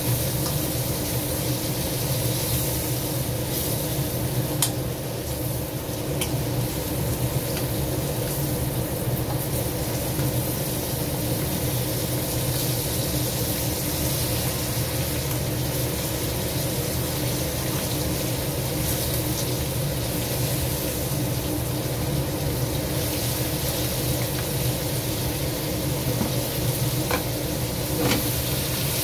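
Crab pieces sizzling steadily as they fry in a wok, over a steady low hum. A few short clicks of the tongs against the pan come as the pieces are turned.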